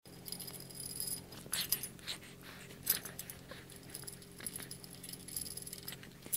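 Steel bolts, washers and nuts clinking lightly against each other and the steel frame as they are fitted by hand: a string of small metallic clicks, a few sharper ones about a second and a half in, about three seconds in and at the very end, over a faint steady hum.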